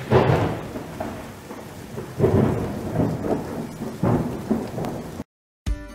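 Thunder rumbling in several swells over a steady hiss of rain, a storm sound effect, which cuts off abruptly about five seconds in. Music with a steady beat starts just before the end.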